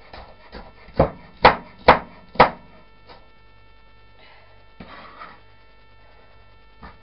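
Kitchen knife chopping vegetables on a plastic chopping board: a few light cuts, then four sharp knocks about half a second apart, starting about a second in. Softer handling sounds follow a couple of seconds later.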